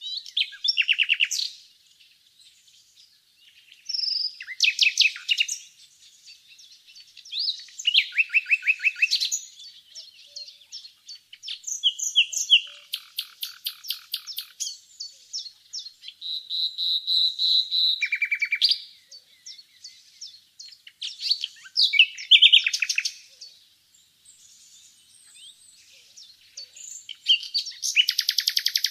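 Common nightingale singing: a run of separate phrases with short pauses between them, mostly rapid trills of repeated notes, with a steady held whistle about midway and a loud trill near the end.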